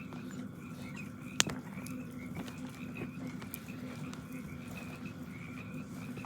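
Frogs calling in a steady chorus of rapid, repeated chirps over a low steady hum, with one sharp crack about a second and a half in.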